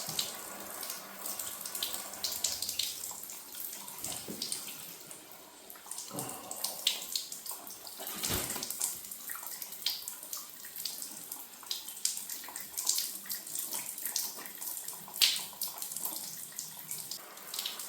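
Shower water running and spattering steadily as a parrot is bathed under it.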